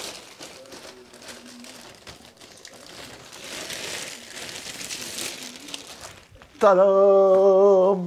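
Clear plastic bag crinkling and rustling as it is pulled off and bunched up by hand. About six and a half seconds in, a man's voice calls out a long, drawn-out "Ta-da!", the loudest sound here.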